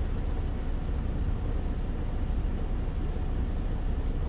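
Steady low rumble of an idling vehicle engine, with no changes in pitch or level.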